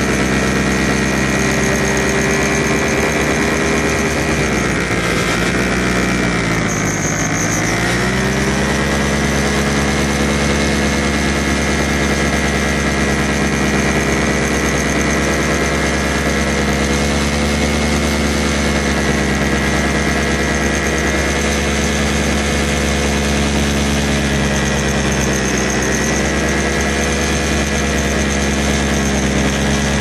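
Paramotor engine and propeller running steadily and loud, its pitch dropping and coming back up between about five and eight seconds in, and dipping a little again near the end.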